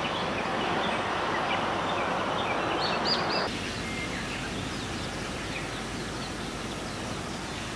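Outdoor ambience of small birds chirping repeatedly over a steady background hiss; about three and a half seconds in, the background noise drops abruptly and the chirps carry on more sparsely.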